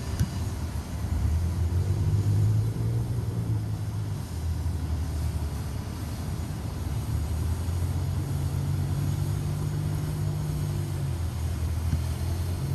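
Hum of a small drone's motors and propellers as it hovers, a steady drone whose pitch steps up and down every few seconds as the motors adjust.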